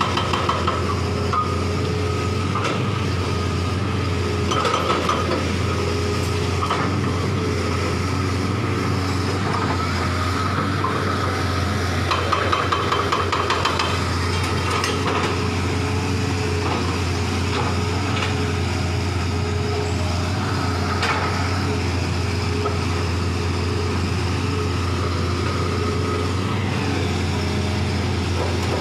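Excavator's diesel engine running steadily, with scattered metallic clinks and knocks from the demolition work.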